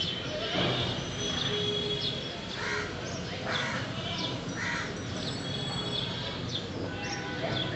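Birds calling outdoors: several short harsh caws, crow-like, spaced a second or so apart, over high chirps and whistles from smaller birds throughout.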